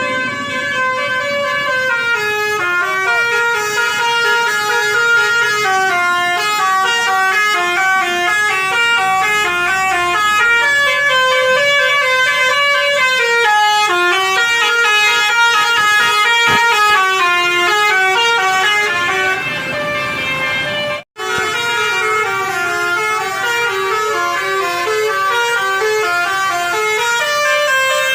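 Indonesian coach bus telolet horn, a bank of horns playing a fast, stepping multi-note melody over and over. It breaks off for a moment once, about three-quarters of the way through.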